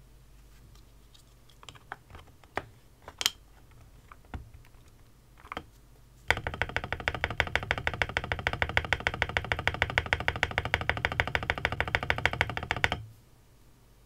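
A few scattered plastic clicks as a PBT spacebar keycap is pushed onto its switch and stabilizer stems. About six seconds in, the spacebar is pressed rapidly and steadily for several seconds, then stops suddenly: the clack and rattle of a mechanical keyboard's spacebar on a lubed Gateron Ink Black linear switch with Permatex-lubed stabilizers.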